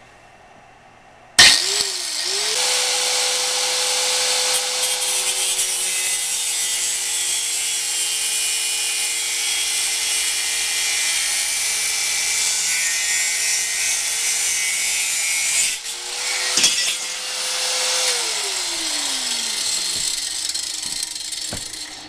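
Harbor Freight angle grinder with a thin cut-off wheel spinning up and cutting through aluminum angle stock: a steady motor whine under a harsh, hissing grind. After about fifteen seconds the grinding hiss drops away. The motor runs on briefly, then is switched off and winds down with a falling whine.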